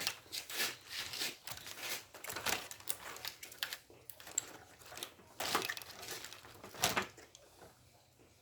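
Irregular rustling, crinkling and scraping from hands working a defrost heater element onto a refrigerator's tubed evaporator plate, dying away near the end.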